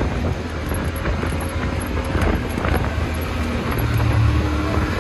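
Side-by-side UTV running steadily along a dirt trail, heard on board: a low engine and drivetrain drone with wind buffeting the microphone and a few light rattles and clicks partway through.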